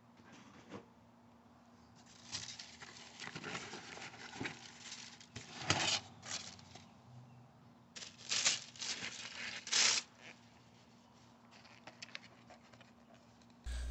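Packing paper and plastic blister packs rustling and crinkling in a cardboard box as they are handled, in irregular bursts, loudest about six and ten seconds in.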